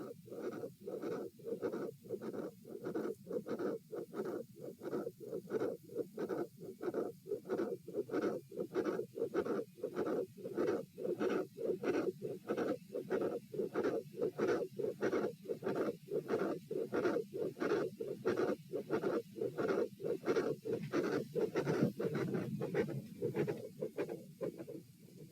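Human heartbeat heard through a stethoscope: a fast, even beat with a continuous murmur filling the gaps between beats. The murmur weakens a little near the end.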